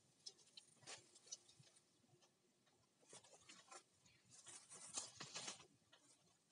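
Faint crackling and rustling of dry bamboo leaves and twigs, with scattered clicks, as a bamboo clump is handled and worked with pruning shears. The sounds come in small groups, the densest about two-thirds of the way through.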